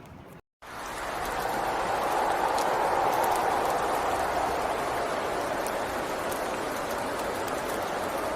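Steady rain, with scattered drop ticks. It cuts out briefly about half a second in, then comes back louder and fuller.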